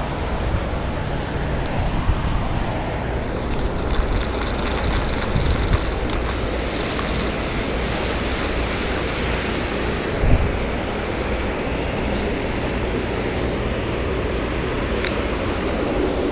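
Wind buffeting the microphone over a steady rushing noise, with low bumps now and then, the strongest about ten seconds in.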